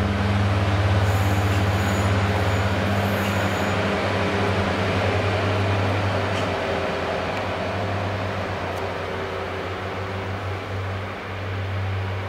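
Diesel multiple unit, a Class 153 leading with a Class 143 Pacer trailing, pulling away from the platform: the underfloor diesel engines run with a steady low drone that slowly fades as the train moves off.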